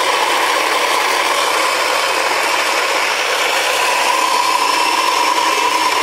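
The built-in coffee grinder of a Saeco Incanto Classic superautomatic espresso machine running steadily, grinding beans at the start of a brew cycle, a loud grinding whir with a steady whine in it.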